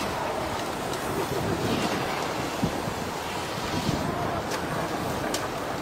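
Tsunami floodwater rushing steadily through a flooded town, carrying wreckage, with wind on the microphone and a few faint clicks in the second half.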